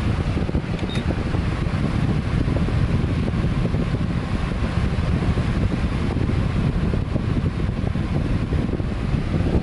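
An electric fan running steadily, a dense rushing of moving air with most of its weight low down. A short high beep comes about a second in.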